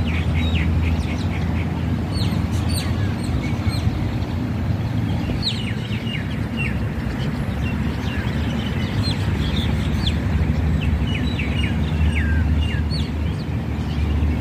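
Small birds chirping in the trees: many short, sharp, falling chirps scattered throughout, over a steady low rumble.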